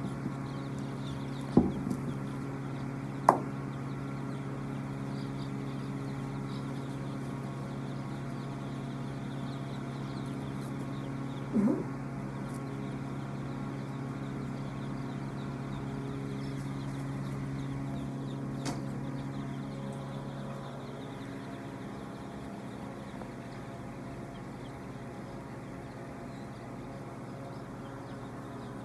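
A shed full of young chicks peeping over a steady low hum, which stops about two-thirds of the way through. A few brief sharp knocks come near the start, the loudest a few seconds in, and one more near the middle.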